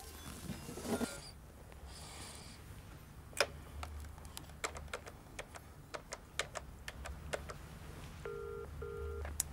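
Keys of a push-button landline telephone clicking as a number is dialled, a dozen or so presses over about four seconds. Near the end come two short bursts of a low steady tone, the double ring of a British ringing tone: the call is ringing at the other end.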